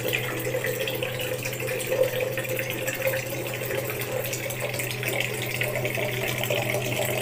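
Small electric water-dispenser pump on a large bottled-water jug running with a steady hum, its thin stream of water splashing into a glass jug as it fills.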